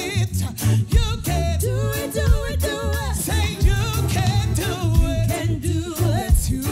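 Live reggae band playing: a woman sings the lead with a wide vibrato and backing singers join her, over a steady repeating bass line and drums.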